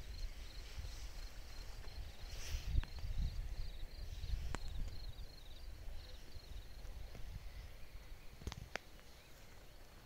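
A cricket chirping, a steady high-pitched series of short chirps that stops about seven seconds in, over a low rumble, with a few sharp clicks near the middle and the end.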